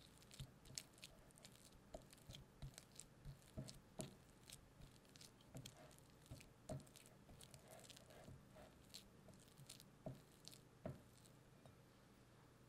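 Faint, irregular squishing and scraping as a spatula works room-temperature unsalted butter around a glass mixing bowl, loosening and creaming it smooth.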